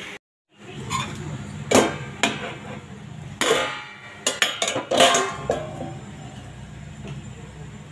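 Steel lid and cooking pan being handled: a string of irregular metal clinks and knocks, some ringing briefly, over a low steady background.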